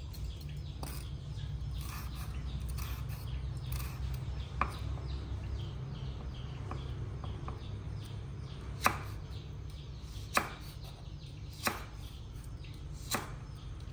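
A kitchen knife slicing red chillies on a wooden cutting board: a run of irregular knife knocks on the board, with about five sharper, louder chops in the second half. A steady low hum sits underneath.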